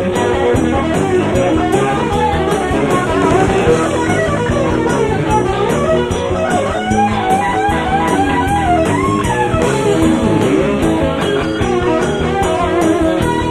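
Live country-rock band playing an instrumental break: an electric guitar lead with bending notes over strummed rhythm guitar, bass guitar and drum kit.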